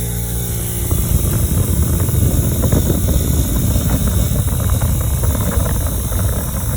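Power-tool wire wheel spinning at speed. From about a second in, it scrubs loudly and roughly against a metal brake part, cleaning off rust and old paint.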